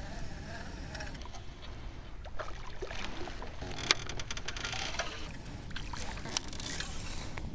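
Quiet on-the-water sound from a fishing kayak: a steady low rumble of water and wind with a cluster of small sharp clicks and ticks in the middle, the strongest about four seconds in, and another a little later.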